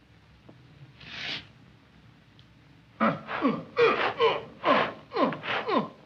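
A short breathy hiss about a second in. Then, from about three seconds in, a rapid run of short vocal cries, each falling in pitch, about two a second, like gasping.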